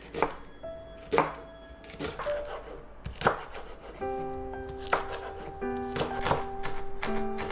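Chef's knife chopping through a Korean green onion onto a wooden cutting board, one sharp cut about every second. Soft background music with held notes comes in about four seconds in.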